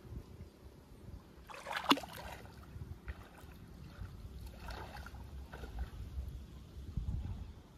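Pond water splashing and sloshing as a man wades through it, feeding a mesh fishing net into the water by hand; a sharp splash about two seconds in, with smaller splashes later.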